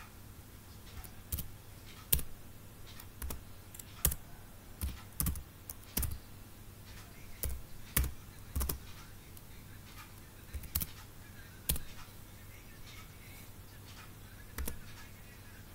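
Computer keyboard typing: single keystrokes pressed slowly and irregularly, with pauses of a second or two between some of them, over a faint steady low hum.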